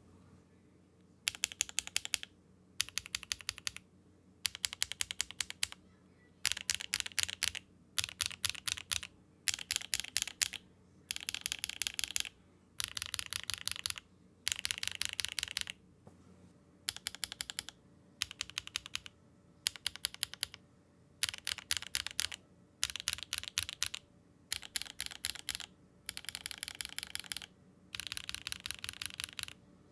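Mechanical keyboard fitted with HMX switches being typed on in a sound test: short runs of fast keystroke clacks, each a second or so long, with brief pauses between.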